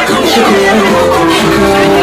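Music played loud by a DJ through a stage sound system.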